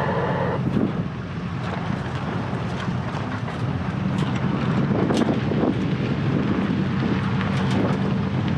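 Vehicle driving steadily along a back road: an even engine and road hum, with wind noise and scattered small ticks and rattles.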